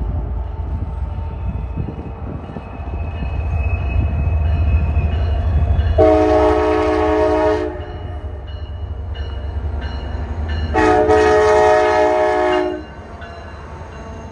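EMD F40PH diesel locomotives approaching and passing, their engines rumbling louder as they near. A multi-note chime horn sounds two long blasts, about six and about eleven seconds in.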